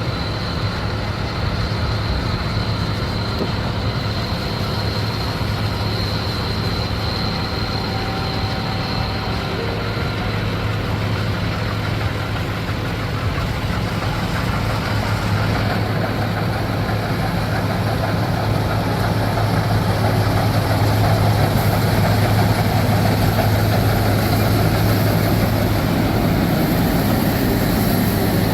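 Heavy diesel engine of harvest machinery running steadily with a constant low drone, growing somewhat louder about two-thirds of the way through.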